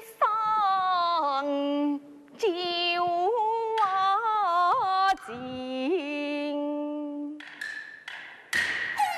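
A woman singing a slow Taiwanese opera (gezaixi) aria line, with long held notes that waver in vibrato and slide between pitches. The instrumental accompaniment strikes in near the end.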